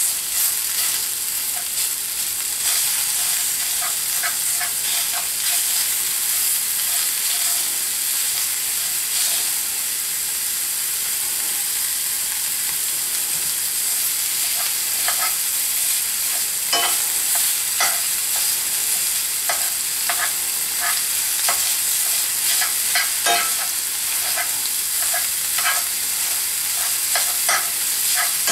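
Sausage sizzling as it browns in a cast iron skillet, with a metal spoon scraping and clicking against the pan as the meat is broken into small crumbles. The spoon clicks come more often in the second half.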